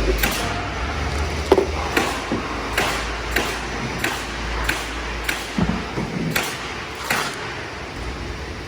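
Nails being driven into wall framing: a string of sharp strikes, about one every two-thirds of a second.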